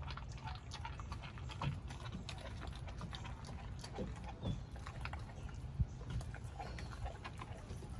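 A pit bull chewing a whole raw chicken: wet smacking and crunching of meat and bone at irregular intervals, over a steady low background rumble.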